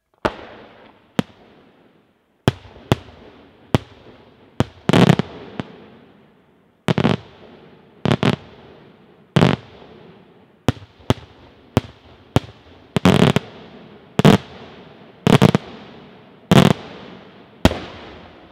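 Daytime fireworks shells bursting overhead: an irregular series of about twenty loud, sharp bangs, some in quick pairs or clusters, each trailed by a fading echo.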